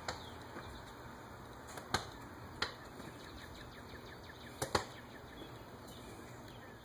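A handheld diagnostic scan tablet being handled and tapped: about five sharp clicks, two of them close together a little before the end, over a faint steady hiss.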